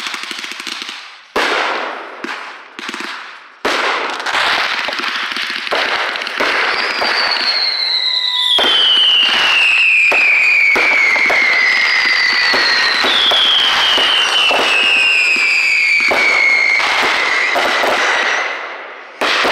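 Consumer aerial fireworks going off in quick succession, with sharp bangs and dense crackling. Two long whistles fall steadily in pitch, the first starting about 7 seconds in and the second about 12 seconds in.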